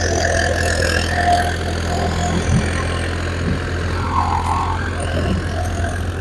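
Farmtrac 60 PowerMaxx tractor's diesel engine running steadily under heavy load at about 1800 rpm while pulling a disc harrow through wet soil. The engine holds its speed with no audible rpm drop.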